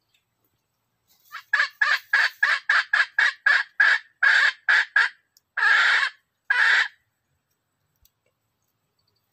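Red junglefowl cackling: about a dozen short, loud calls in quick succession, then two longer calls.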